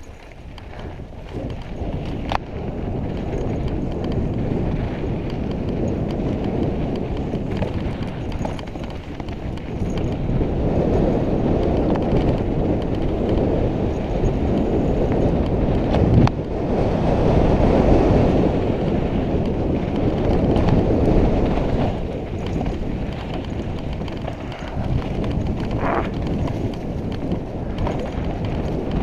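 Mountain bike riding fast down a dirt singletrack: wind buffeting the microphone over the rumble of the tyres and the rattle of the bike on bumps, with a sharp knock a little past the middle.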